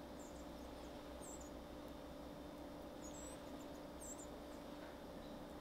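Quiet room tone with a steady low hum, and several brief, high-pitched chirps scattered through, some sliding up in pitch.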